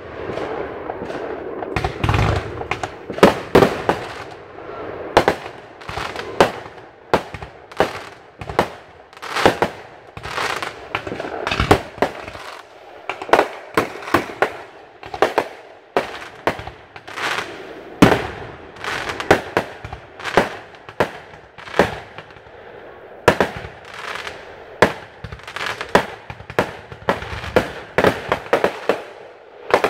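Aerial fireworks going off in quick succession: sharp bangs, often several a second, with crackling between them.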